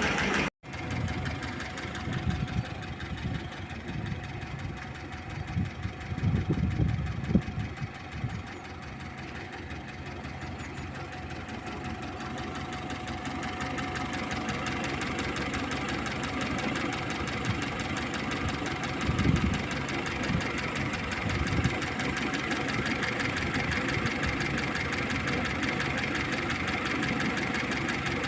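VAZ-2101 Zhiguli engine idling while still cold, with a light clacking from the camshaft, which the owner takes for a worn, second-hand camshaft. A few dull thumps stand out now and then.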